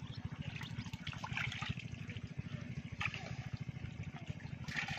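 A water pump's engine running in the background with a steady, fast chug, while water trickles and hands squelch through wet mud.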